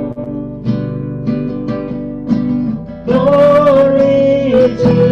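Acoustic guitar strumming chords in a steady rhythm, accompanying a worship song. About three seconds in, a voice comes in singing one long held note.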